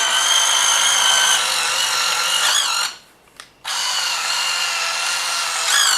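Electric drive motors and gearboxes of a 1/16 scale Die Cast Masters RC Cat 297D2 track loader running with a steady whine. The whine dips in pitch and stops about three seconds in, then starts again a moment later.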